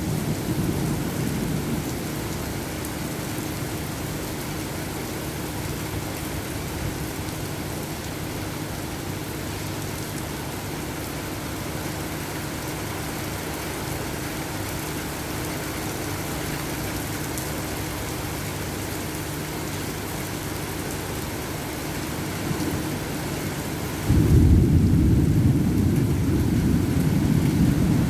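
Heavy rain falling steadily in a thunderstorm. The low rumble of thunder dies away in the first couple of seconds, and about 24 seconds in a sudden loud thunderclap breaks and rumbles on to the end.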